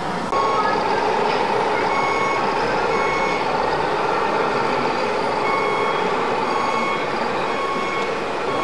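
Reversing beeper of an RC model truck sounding in short, evenly spaced beeps, in two runs with a pause between them, over a steady hum and general hall noise.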